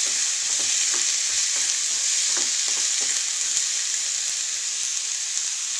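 Chopped onions frying in hot oil in a kadai, a steady sizzle, with a spoon scraping and stirring them in strokes about twice a second that stop after about three and a half seconds, leaving the sizzle alone.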